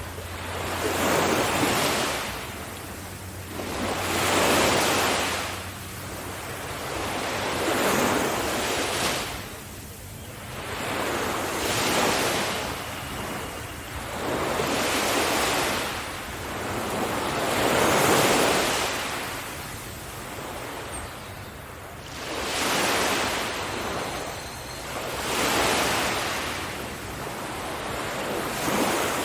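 Sea waves breaking and washing up on a beach, one surge about every three seconds, each swelling and then fading.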